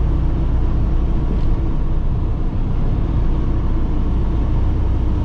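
Semi truck cruising at highway speed, heard from inside the cab: a steady low engine and road rumble.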